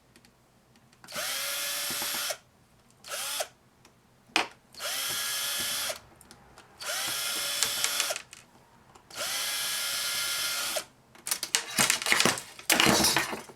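Power drill driving screws out of a laminator's casing, spinning up in short runs of about a second with pauses between, five or six times. A clatter near the end.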